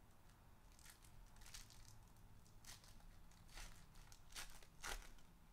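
Foil wrapper of a trading card pack being torn open and crinkled by hand: several faint, short crackles and rips.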